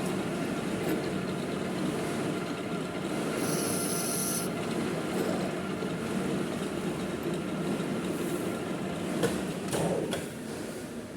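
Manual metal lathe running with a steady hum, a dense scraping noise over it as the 7-inch ring clamp is worked. There is a sharp click about nine seconds in, and the noise eases off near the end.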